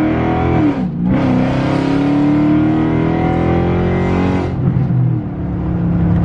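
Car engine accelerating hard, its pitch climbing, then dropping briefly at a gear shift about a second in and climbing again before the driver eases off near the end.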